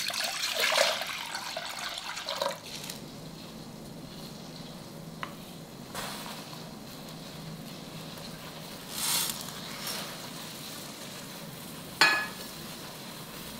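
Water poured from a vessel into a steel pot for the first couple of seconds, then the water bubbling at a steady boil, with a few short splashes later as whole spices are dropped in.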